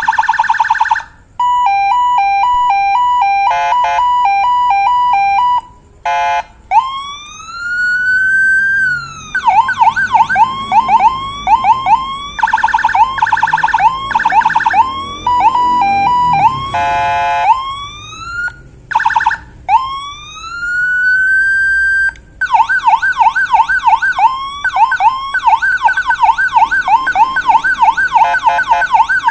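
CJB100A electronic siren module sounding its tone patterns one after another, switched by jumper: a steady tone, a two-tone hi-lo, slow rising wails and fast warbling yelps. There are short breaks as it changes pattern.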